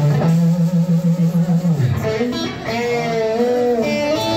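Electric guitar played live through an amplifier: a low note picked rapidly over and over for about two seconds, then higher notes bent and slid in pitch.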